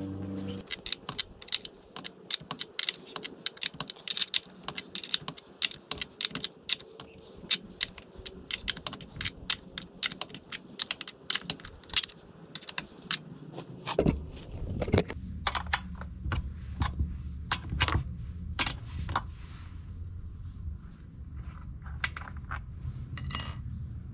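Metal tools clinking and clicking against the nuts and stud of a Stihl chainsaw's guide-bar mount as a spanner works them, a rapid run of sharp clicks through the first half. From about halfway a low steady rumble comes in, and near the end a piece of metal rings briefly.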